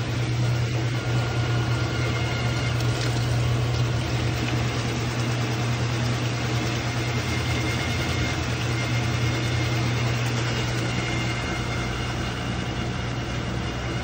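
Whirlpool top-load washer with an agitator running, a steady low hum under a rough rattling, grinding noise, which the owner suspects comes from a failing pump.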